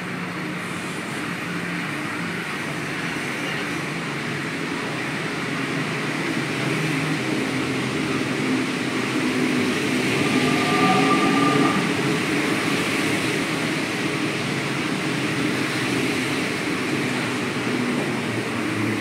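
Alstom NS-93 rubber-tyred metro train pulling into an elevated station platform and slowing to a stop, its running noise building as the cars pass and then levelling off. A brief high whine rises over it about ten seconds in.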